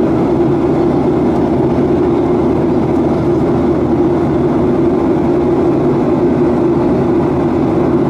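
Steady in-flight cabin noise of a Boeing 737-800 heard by the window over the wing: its CFM56-7B turbofan and the airflow make a constant rushing drone with a strong low hum.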